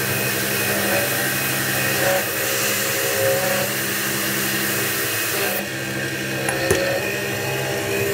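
CNC milling machine's end mill cutting a pocket in an aluminum plate: steady spindle and motor whine mixed with the hiss of the mist-coolant spray. The hiss eases a little past halfway, and there is one short click near the end.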